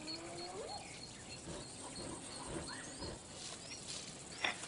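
Faint wild-animal calls: a spotted hyena's rising whoop ends in the first second, with scattered short bird chirps and calls, and a brief sharper call near the end.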